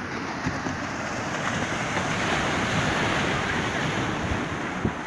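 Small sea waves breaking and washing up the shore, a steady rush of surf that swells a little in the middle, with wind rumbling on the microphone.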